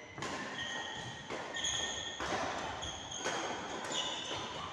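Badminton doubles rally: sharp racket strikes on the shuttlecock about once a second, with short high squeaks of shoes on the court between the hits.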